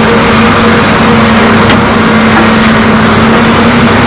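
Heavy diesel engines of Hitachi Zaxis hydraulic excavators running steadily at working speed as they dig and load, a constant loud hum with no change in pitch.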